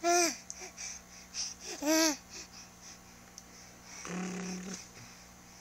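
Baby vocalising: two short arched squeals, one right at the start and one about two seconds in, then a longer low buzzy grunt about four seconds in.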